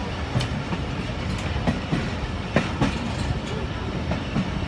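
Express passenger train rolling slowly through a station loop line, its wheels clacking irregularly over rail joints and points above a steady rumble.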